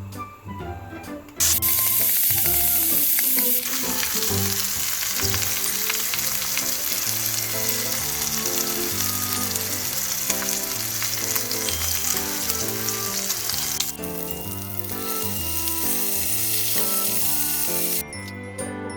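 Pork belly sizzling as it fries in a hot pan. The sizzle starts suddenly about a second and a half in, is loudest for the first couple of seconds, then runs steadily and cuts off near the end. Background music plays throughout.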